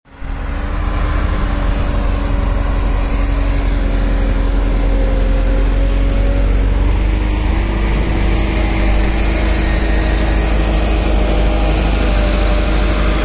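Diesel farm tractor engine running steadily under load as it pulls a heavily loaded earth trolley over soft dirt, with a deep rumble. The engine note steps up slightly about halfway through.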